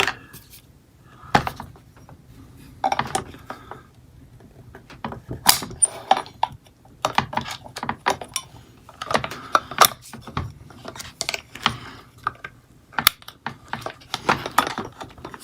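Metal tubes and parts of an ab exercise machine being handled and fitted together: irregular clinks, clicks and knocks throughout.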